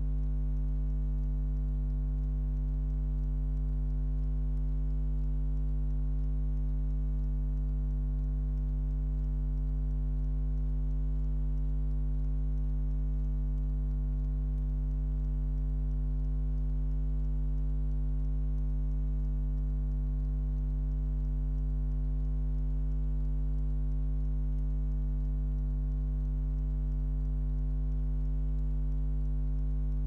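Hotpoint Aquarius WMA46P washing machine standing with its drum still during the soak and heat stage of a hand wash cycle: a steady electrical hum with faint fine ticking, and no tumbling or water movement.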